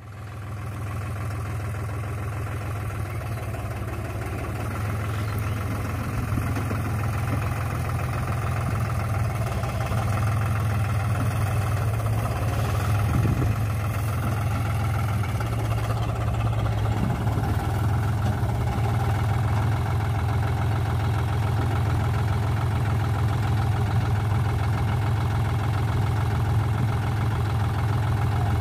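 Deutz-Fahr Agrolux 45 tractor's diesel engine running steadily as the tractor drives, growing louder over the first couple of seconds as it comes closer.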